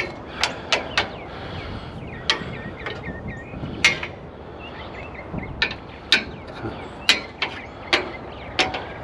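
Irregular sharp clicks and knocks of metal chair frames being handled and checked, about a dozen separate hits, some with a short ring.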